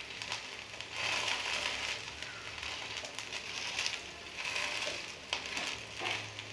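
Bamboo-shoot fritters sizzling in oil on a non-stick tawa while a metal spatula presses and scrapes them, the hiss swelling with each press; pressing drives out the raw water inside the shoots.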